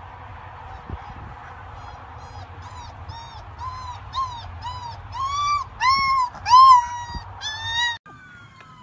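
Labrador retriever puppy whimpering in a string of short, high yips, each rising and falling in pitch, about two a second and growing louder. A steady low hum runs underneath.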